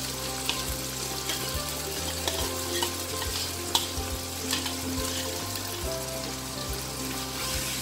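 Onions, tomato and spices sizzling in oil in a wok while ground chilli paste is poured in, with a few light clicks of the spoon scraping the paste out of the bowl.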